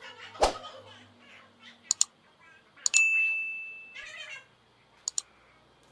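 Sharp paired clicks of a computer mouse, about three times, and a single ringing ding about three seconds in that fades away over about a second.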